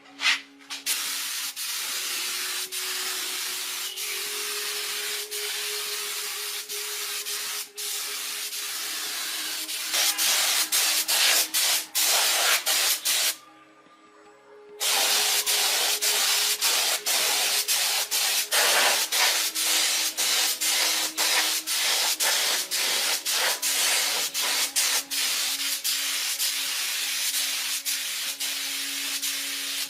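A power tool abrading rusty metal: a harsh, steady scouring hiss over the motor's whine, broken by many brief dropouts. It stops for about a second and a half a little before halfway, then carries on.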